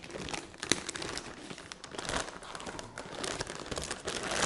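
Clear plastic wrapping crinkling and rustling as it is pulled off and around a boxed projector, in an irregular string of crackles.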